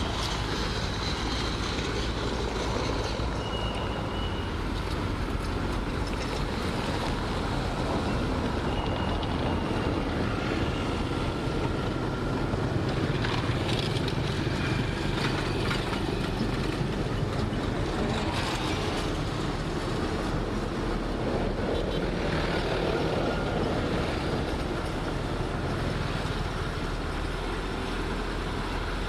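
Heavy diesel earthmoving machinery running steadily under load, with a few brief faint high squeals.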